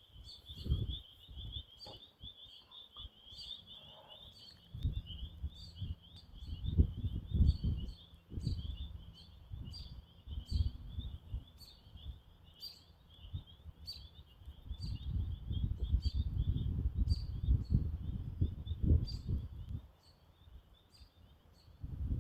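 Wind gusting and buffeting the microphone in irregular bursts, loudest from about 5 to 8 seconds in and again from 15 to 19 seconds in. Behind it runs a steady high-pitched trilling chorus with sharp chirps repeating about twice a second, the trill fading near the end.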